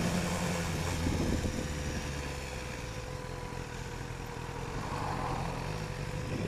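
BMW S1000R motorcycle's inline-four engine running steadily at low revs as the bike rolls slowly through traffic.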